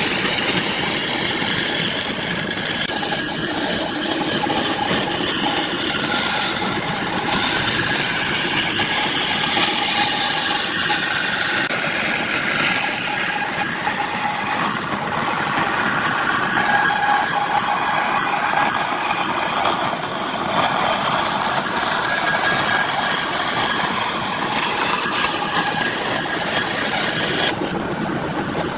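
A woodworking power tool's motor running without a break, its pitch wandering slightly as it works.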